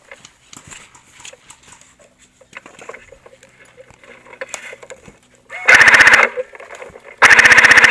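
An airsoft MG42 replica machine gun fires two full-auto bursts, each a loud rapid rattle of evenly spaced shots. The first burst is short and comes about five and a half seconds in; the second, longer one starts about a second later. Before them there are only faint scattered clicks.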